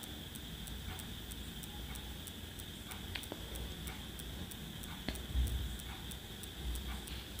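Faint background noise: a steady high whine with soft, evenly spaced ticks about three times a second, and a couple of light clicks.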